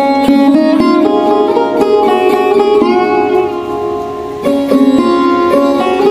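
Background music: a plucked string instrument plays a melody with sliding notes. It dips a little quieter about four seconds in.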